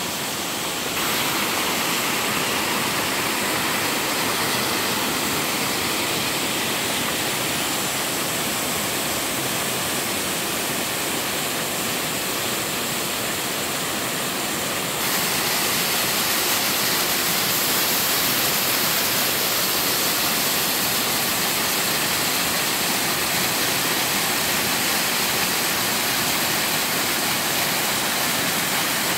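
Waterfall pouring into a rocky mountain stream: a steady, dense rush of falling water. The sound steps up slightly in level about a second in and again about halfway.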